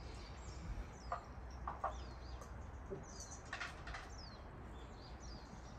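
Small birds chirping: repeated short high calls that sweep downward, with a few short sharp notes about one, two and four seconds in.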